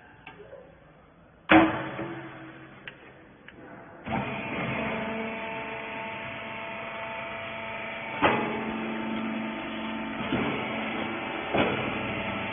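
Rag baling machine: a single loud knock, then about four seconds in its motor and hydraulic pump start and run with a steady hum made of several fixed tones, a few knocks sounding over it.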